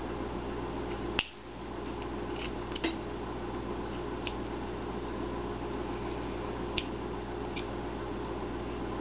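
Small carving knife slicing chips from a wooden figure: a few scattered sharp snicks and clicks, the loudest about a second in, over a steady low hum.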